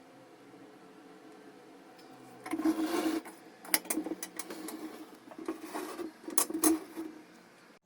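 Irregular rubbing and scraping of hard parts, with several sharp clicks, starting about two and a half seconds in.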